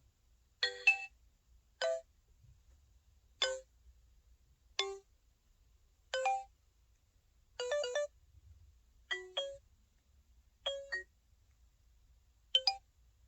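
SK-900 phone playing its marimba-style sound effects one after another: nine short chimes, each a quick figure of a few notes, about a second and a half apart.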